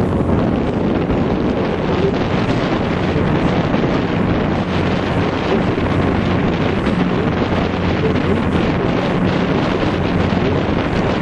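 Wind buffeting the microphone on a moving boat, over the steady low drone of the boat's engine and the wash of water.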